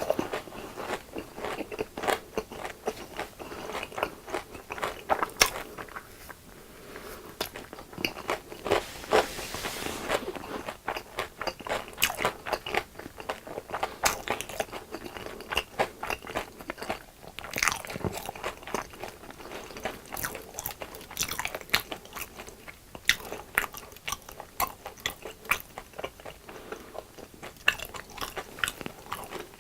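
Close-miked biting and chewing of crunchy deep-fried food: many sharp, irregular crunches, with a brief hiss about a third of the way through.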